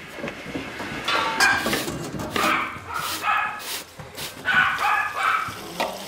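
Stiff brush scrubbing a long trough in short strokes, with several animal calls from the penned livestock over it, the calls being the loudest thing, in three groups about a second apart.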